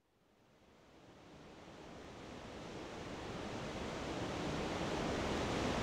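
A steady rushing ambient noise fades in from silence and grows steadily louder.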